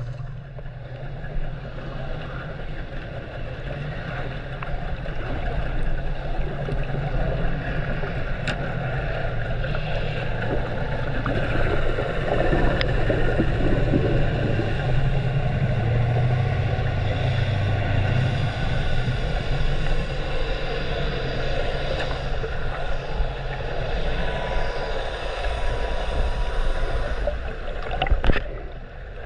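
Heard from underwater: a steady low hum of boat engines carried through the water, over a hiss of water noise.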